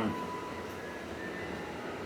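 1969 Triumph Bonneville T120R's 650 cc parallel-twin engine idling, heard as a low, even drone while it holds oil pressure.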